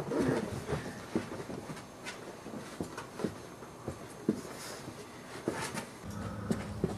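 Boxer dog and puppy at play: scattered soft knocks and scuffling of paws and a plush toy on carpet. About six seconds in, a steady low hum starts.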